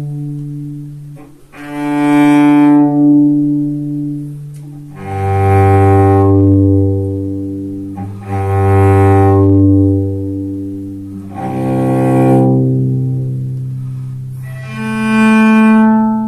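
Cello played with long, slow, smooth bow strokes on single sustained notes: about five strokes, each swelling and then fading over roughly three seconds, the pitch stepping lower midway and rising near the end. A right-hand bowing warm-up.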